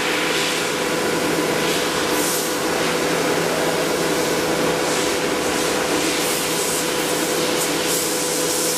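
CNC router running steadily, a constant machine whine over a hiss, while its spindle head is jogged over the workpiece.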